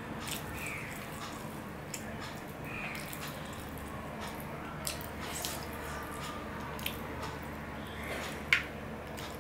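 Wet eating sounds of rice mixed with dal and curry eaten by hand from a steel plate: squishing of fingers working the rice, chewing and small mouth clicks, with one sharp smack about eight and a half seconds in as the loudest sound.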